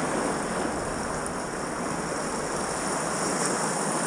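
Sea waves washing at the water's edge, with wind on the microphone: a steady rushing noise.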